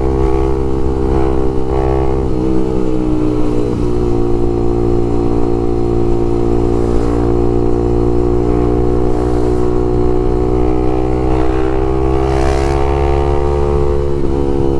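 Honda CBX 250 Twister's single-cylinder engine running through an open LeoVince exhaust while riding at a steady cruise; the engine note dips slightly a few seconds in, then holds level.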